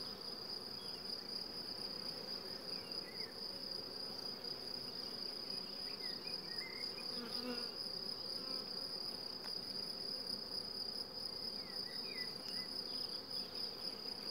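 Buckfast honeybees buzzing over an open hive as a frame covered in bees is lifted, with a steady high-pitched trill above the hum.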